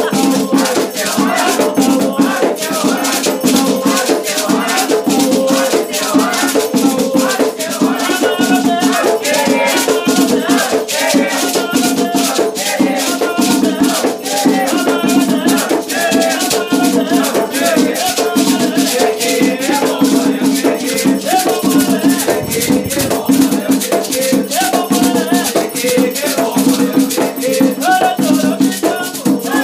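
Afro-Brazilian Batuque ritual music: a shaken rattle keeping a fast, steady rhythm over percussion, with voices singing a chant.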